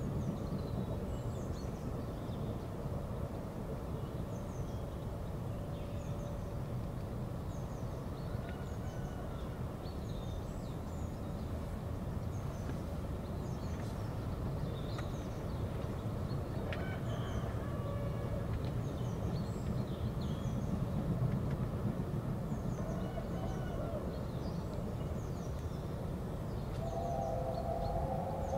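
BR Standard 5MT steam locomotive working up the gradient inside a tunnel, heard as a steady low rumble, while small birds chirp. About 27 s in, the locomotive's whistle starts sounding a steady note of several tones together.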